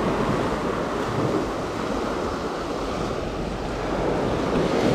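Small waves washing in over a gravel beach, with wind on the microphone.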